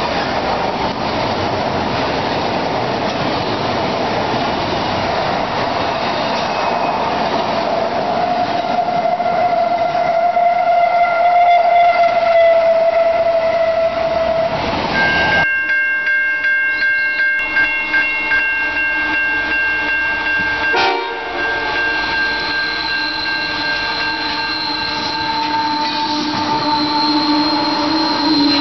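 Diesel-hauled freight trains passing close by. First a string of container wagons rolls past with a steady rush of wheel noise and a single tone slowly falling in pitch. Then, from about halfway, a second freight train's locomotives pass with several steady high-pitched tones held for seconds.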